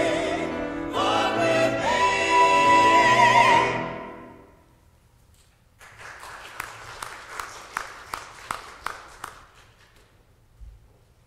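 A small mixed choir sings the last phrase of a piece, with the final chord held high and then dying away in the room's echo about four seconds in. About two seconds later, light scattered clapping runs for about four seconds.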